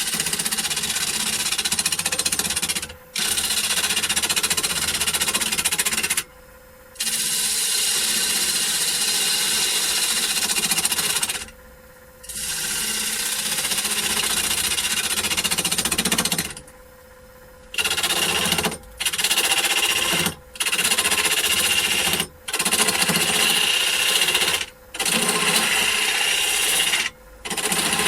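Turning gouge cutting into wood spinning on a Holzmann D460FXL lathe. The loud, rough cutting noise comes in passes of a few seconds, which get shorter and closer together toward the end. In the short breaks between passes only the lathe's steady hum is left.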